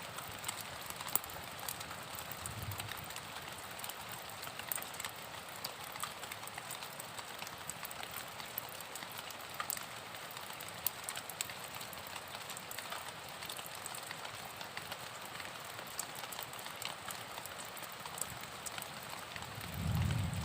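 Steady rain: an even hiss with many single drops ticking sharply through it. A low rumble comes in near the end.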